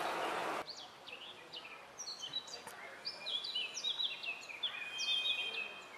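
Songbirds singing among trees: a busy run of short chirps, quick falling notes and held whistles, growing fuller and loudest near the end. At the start, the running noise of a garden-scale model train cuts off after about half a second.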